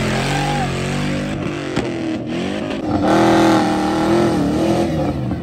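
Off-road 4x4 engines revving hard under load on a steep dirt climb, the pitch rising and falling with the throttle. About two seconds in the sound breaks to a second engine, which revs louder and higher from about three seconds before easing off.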